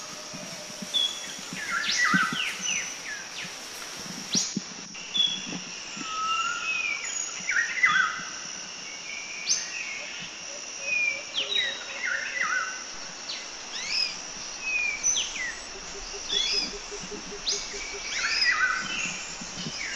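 Wild birds chirping and whistling, many short rising and falling calls one after another, over a steady high insect hum.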